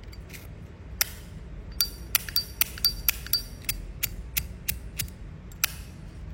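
Metal Zippo lighters being handled: a run of sharp metallic clicks and clinks, quickest about two to three and a half seconds in, a few of them ringing briefly.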